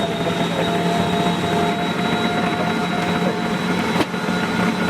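Food processor motor running at full speed with a steady high whine as it shreds carrots. A sharp click about four seconds in.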